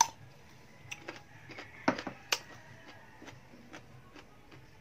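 Crunching bites and chewing of firm, half-ripe papaya: scattered sharp crunches and wet mouth clicks, the loudest about two seconds in.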